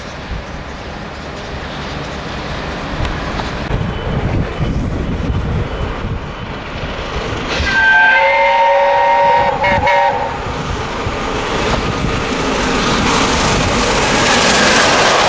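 Steam locomotive 60163 Tornado, a Peppercorn A1 Pacific, running past with its coaches, the rumble and rail clatter building as it comes close. About eight seconds in it sounds its whistle, a chord of several notes held for about two seconds with a brief dip near the end.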